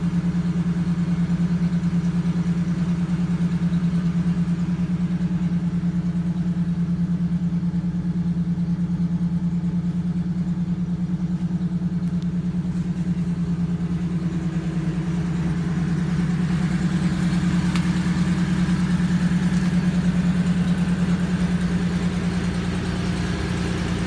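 1997 Ford F-150's 4.2-litre V6 running steadily at idle, its exhaust still unwelded, after a replacement harmonic balancer cured a no-start. The sound grows a little louder and brighter a bit past halfway.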